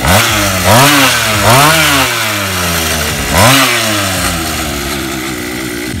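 Small 50cc petrol engine on a Go-Ped-style stand-up scooter, blipped by its throttle four times in the first few seconds, each rev rising and falling back, then running at a steady idle.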